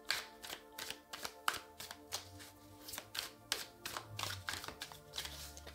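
Soft background music of held sustained notes, with frequent light clicks and taps over it.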